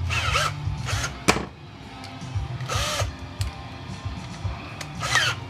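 Cordless power driver spinning in short bursts, three times, each a whine that rises and falls, as it backs screws out of a plastic tool housing, with a few sharp clicks between. Background music plays underneath.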